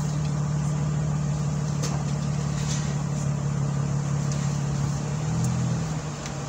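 Car idling, heard as a steady low hum inside the cabin; its pitch shifts slightly about five seconds in, and it eases off near the end.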